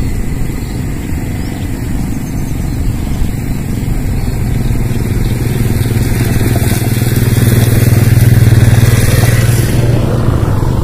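A motorcycle passing by, its engine growing louder over several seconds to a peak near the end, then fading.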